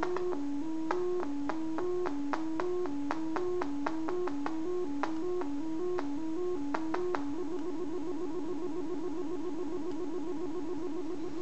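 Pure Data oscillator tone stepping over and over through three notes, C, D and E (MIDI 60, 62, 64), with a click at each note change, a few notes a second. About seven seconds in the metronome is sped up and the notes become a fast, even run.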